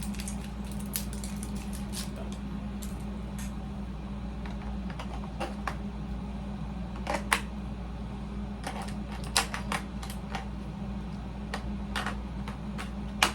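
Scattered plastic clicks and taps as batteries are fitted into a Nerf Motoblitz blaster's battery compartment, with a few sharper clicks standing out. A steady air-conditioner hum runs underneath.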